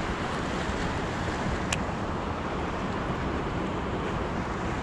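Wind buffeting an outdoor microphone: a steady rumbling hiss, with one faint click about two seconds in.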